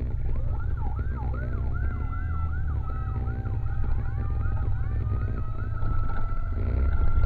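Electronic emergency siren yelping rapidly, about three rising-and-falling sweeps a second, then settling into a steady high tone about five seconds in, over a constant low rumble.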